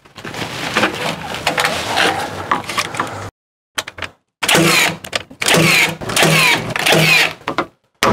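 Rustling and handling noise, then after a second of silence a cordless nail gun fires four times, about two-thirds of a second apart, each shot a short motor whir with a sharp crack, driving nails through a ply side form into a concrete-block wall.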